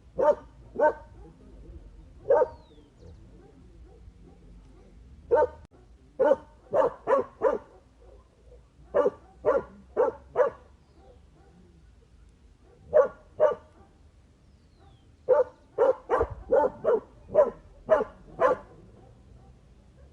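A dog barking: short, sharp barks, some single and some in quick runs of up to about eight, with pauses of a second or more between runs.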